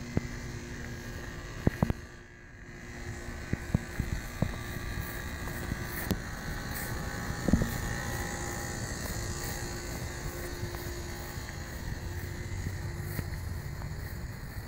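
A steady low mechanical hum with scattered light clicks and knocks.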